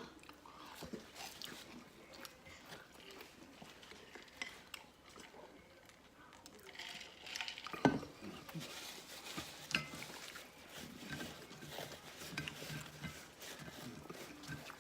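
Faint eating sounds of people chewing chicken nuggets, with scattered small clicks and handling noises. A brief vocal sound comes about eight seconds in.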